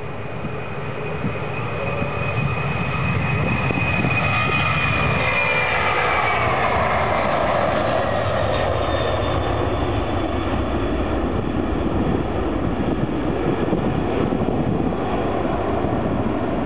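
Boeing 767-300's twin turbofan engines at takeoff thrust as the jet rolls past close by and lifts off: the sound builds over the first few seconds, a high whine falls in pitch as it goes by, then a steady engine noise holds as it climbs away.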